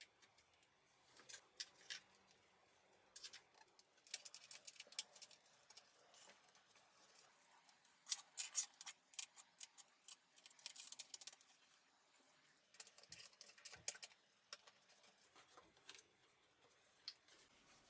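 Quiet, irregular runs of rapid small clicks and ticks from hand work with small parts, coming in several bursts of a second to three seconds with pauses between.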